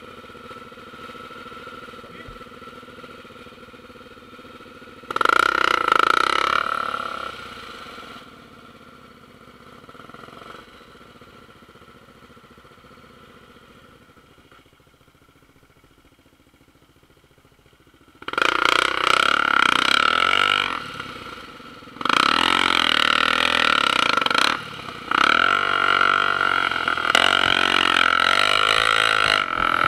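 Single-cylinder four-stroke Honda trail bike engine revving hard on a dirt trail: a loud burst of throttle about five seconds in, a quieter stretch at low throttle, then sustained hard revving from about two-thirds of the way through with brief lifts off the throttle.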